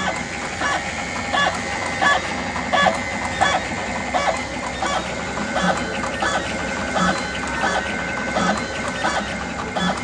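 WPM 320 automatic double-wire cutting and stripping machine running, with a sharp clack about every 0.7 seconds as its blades cut and strip each short length of wire, over a steady high whine.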